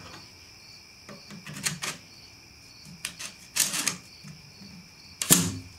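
Strip of 16-gauge finish nails being loaded into the rear magazine of a DeWALT D51256 pneumatic nailer, with metal-on-plastic clicks and a short sliding rattle. Near the end comes a sharp snap, the loudest sound, as the magazine clicks shut.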